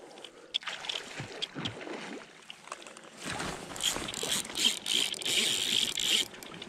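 River water splashing and swirling around a mesh landing net held in the current, with scattered clicks and swishes. From about three seconds in, louder rustling of a jacket sleeve rubbing close against the microphone covers the water.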